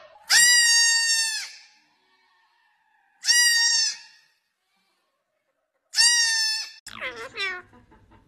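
A young goat screaming: three long, loud bleats held at a steady high pitch, about three seconds apart. Near the end, an Indian ringneck parakeet makes quick calls that fall in pitch.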